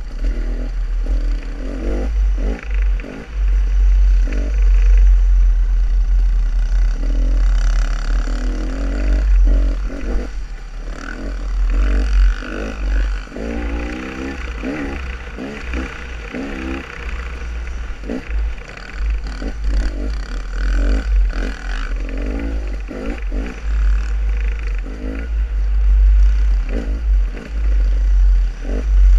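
Dirt bike engine running under a helmet-mounted microphone, its revs rising and falling as the bike picks its way over rough ground, with wind buffeting the microphone and the bike clattering over rocks.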